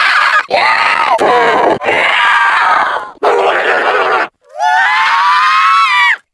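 A woman's voice performing zombie sound effects: four short strained cries and groans in a row, then a longer scream that rises in pitch, holds and falls away before cutting off near the end.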